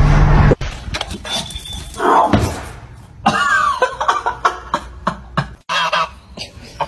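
Domestic goose honking in short, harsh calls. Steady car-cabin rumble cuts off suddenly about half a second in.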